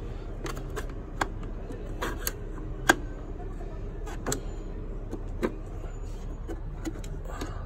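Irregular sharp metallic clicks and taps from hand tools and fittings at a car's brake master cylinder as it is worked loose, the loudest about three seconds in, over a steady low hum.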